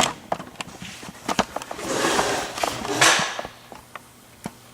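Handling noise from a euro profile lock cylinder and its picking tools: scattered light clicks and a stretch of rustling that ends in a sharper knock about three seconds in.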